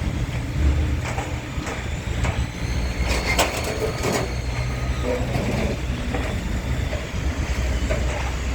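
Heavy diesel machinery running steadily at a scrap yard, with several sharp metallic clanks and knocks from scrap being handled.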